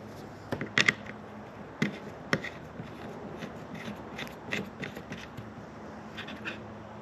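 Small clicks and taps of hands handling the stick antenna as it is screwed onto its roof-mounted base, with a few sharper clicks in the first couple of seconds and lighter ones after.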